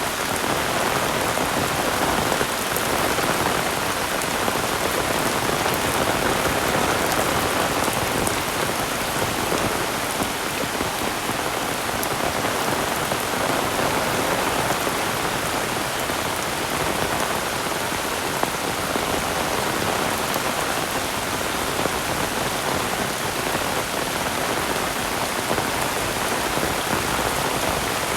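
Heavy rain falling steadily, a dense, even patter of drops with no let-up.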